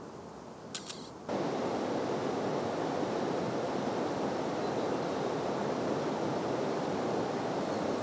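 A quick run of three or four sharp camera-shutter clicks, then about a second in a loud, steady rush of water starts abruptly and runs on evenly.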